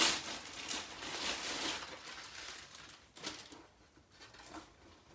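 Clear plastic packaging bag crinkling and rustling as a doll is pulled out of it, loudest in the first two seconds, then a few light knocks and rustles of cloth.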